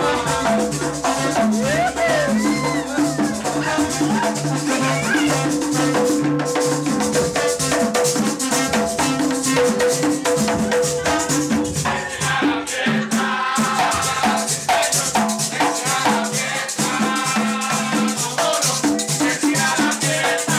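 Puerto Rican plena music: panderos struck by hand in a steady, driving rhythm, with shaken or scraped percussion and singing.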